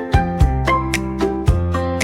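Background music: pitched melody notes over a changing bass line, with a steady beat of sharp percussive strokes.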